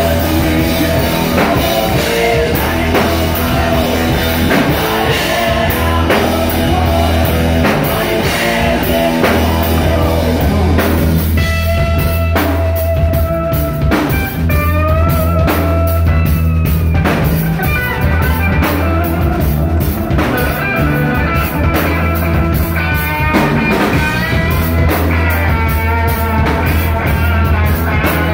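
Live rock band playing loud: electric guitar through a Marshall amp, bass guitar and drum kit. About eleven seconds in, lead guitar lines with bent, wavering notes come in over the band.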